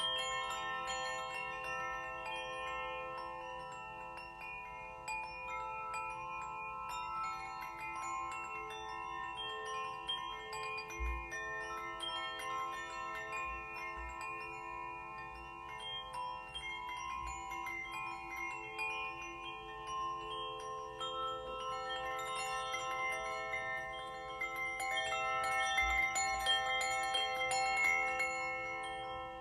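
Metal chimes struck again and again, ringing in many overlapping tones that hang on; the ringing grows fuller and louder near the end.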